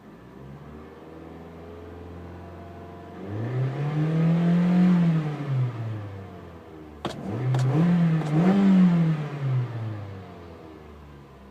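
Mitsubishi Lancer engine idling, then revved twice: one smooth rise and fall in pitch, then a second rev with two peaks before dropping back toward idle. A few sharp clicks come just before the second rev.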